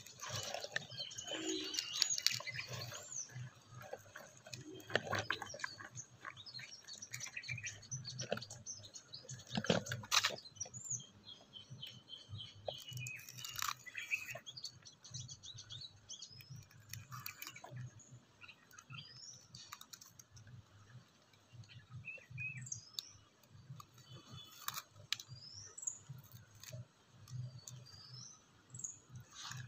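Small birds chirping repeatedly, with a few sharp crackles and rustles from a dry, fibrous mango seed husk being pried open and handled, the loudest about two seconds and ten seconds in.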